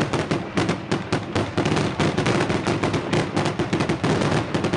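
Daytime fireworks going off in a rapid barrage: a continuous rattle of sharp firecracker bangs, many a second.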